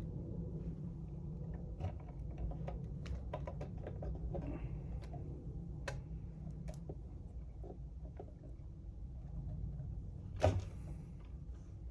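Light clicks and taps of 3D-printed plastic parts and wiring being handled and fitted together, with one louder knock about ten and a half seconds in, over a steady low hum.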